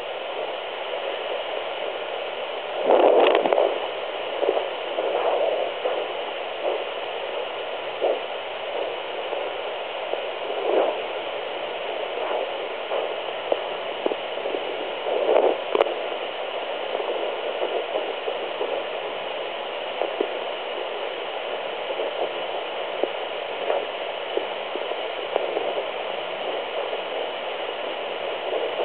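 Sonoline B 3 MHz handheld fetal doppler hissing steadily through its speaker while searching early in pregnancy, with irregular louder whooshes, the loudest about three seconds in and others near five, eleven and fifteen seconds.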